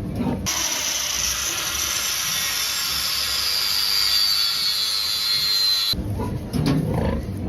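A power tool running for about five seconds, a hissing whine that slowly drops in pitch. It starts and cuts off abruptly.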